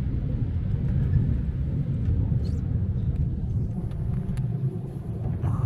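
Steady low rumble of a moving horse-drawn tram, heard from its open upper deck, with a few faint clicks about halfway through.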